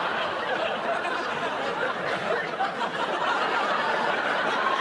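Sitcom studio audience laughing steadily.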